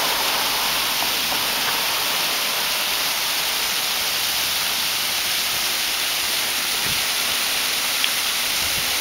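Water cascading in thin streams down a stone wall, a steady rushing splash.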